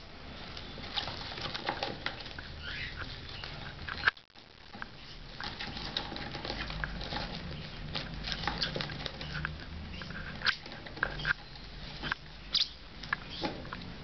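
Masked lovebird chicks being syringe-fed, giving a busy run of short begging chirps and squeaks mixed with small clicks and taps. There is one sharp knock about four seconds in.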